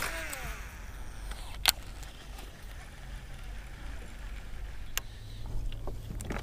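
Baitcasting reel's spool whirring down in pitch as the line pays out on a cast, then sharp clicks and knocks, the loudest about one and a half seconds in, over a low wind rumble.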